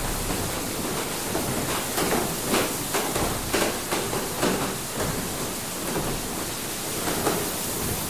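Water mill interior: a steady rush of water with irregular knocks and clatters from the mill machinery.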